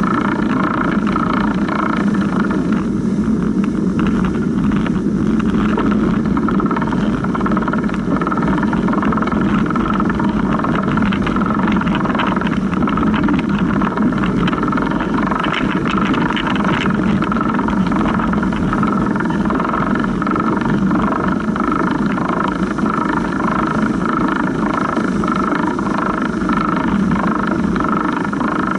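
Drivetrain of a Surly Big Dummy cargo bike in motion: the chain running steadily over the idler pulley just below the seat, a constant whir with scattered small clicks and rattles as the bike rides over rutted snow.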